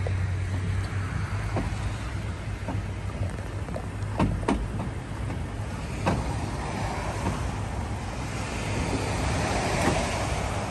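A vehicle engine idling with a steady low hum, with a few sharp knocks around four and six seconds in.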